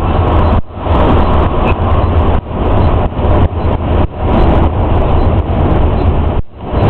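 Yutong ZK6107HA coach's engine and road noise heard inside the cabin while it cruises on the highway: a loud, steady rumble that drops out briefly a few times.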